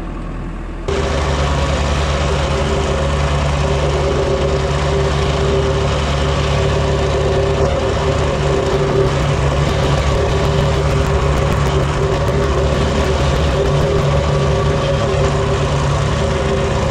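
Gas-engine plate compactor running steadily, cutting in abruptly about a second in.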